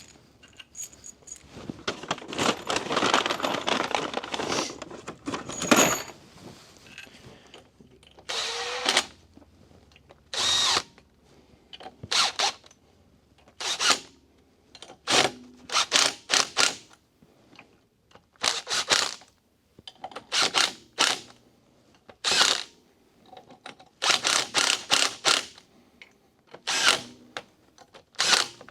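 Power drill-driver run in short bursts, driving in the shorter fasteners on a truck cab latch assembly: one longer run of several seconds, then a series of quick bursts a second or two apart.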